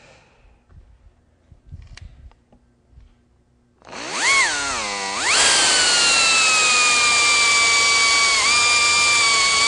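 Variable-speed pneumatic air drill with a number 40 bit drilling a pilot hole through aluminium sheet. After a few seconds of light handling clicks, it starts about four seconds in at slow speed, wavering up and down in pitch as the hole is started. It then jumps to a steady high whine at full speed, which dips slightly once near the end.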